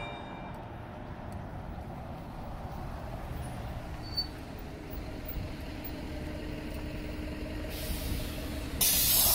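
Isuzu Erga city bus drawing up at a stop, its diesel engine running low and steady. Near the end, compressed air hisses twice, the second louder: the air brakes and doors letting off air as the bus halts to open its doors.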